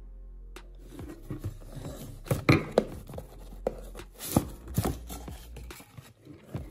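Handling noises from unboxing a speaker's packaging: a scattering of knocks, taps and scrapes, busiest in the middle, over a low steady hum.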